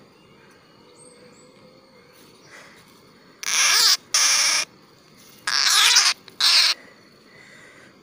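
A barbet held captive in the hand giving four harsh, screechy distress calls in two pairs, each about half a second long, starting about three and a half seconds in.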